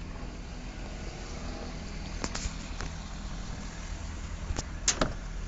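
A steady low engine hum runs throughout, with a few sharp clicks and knocks; the loudest are two close together near the end, as the truck's door is handled.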